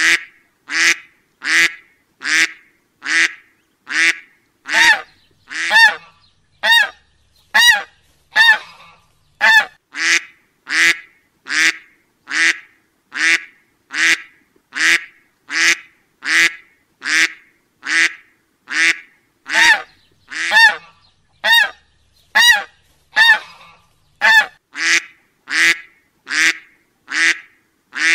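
Duck quacking: short single quacks repeated at an even pace of about one a second, some more nasal and tonal than others.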